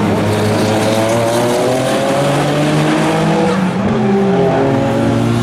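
Twin-turbo V6 engine of a Noble M12 race car at full throttle, climbing in pitch through the revs. It drops near the middle at an upshift and then climbs again.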